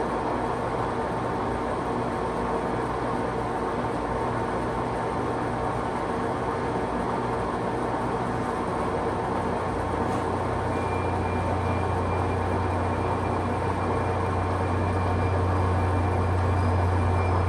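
National hollow spindle lathe running with its power feed engaged: a steady machine hum with gear whine. About halfway through, a low hum grows stronger and a faint high whine joins in.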